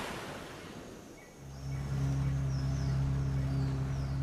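Wind and wave wash fading away, then about a second and a half in a steady low droning hum of held tones sets in: the opening of a background music track.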